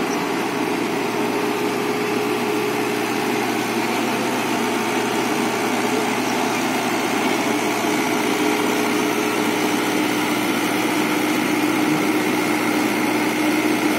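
JCB JS81 excavator's diesel engine running steadily, its tone shifting a little lower about halfway through.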